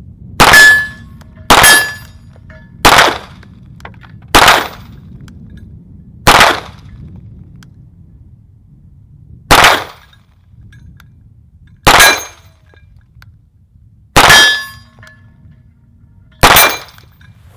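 Nine unsuppressed 9mm pistol shots from a Walther PPQ Navy SD, fired singly at an uneven pace one to three seconds apart. A short, thin ringing tone follows the first two shots and one near the end.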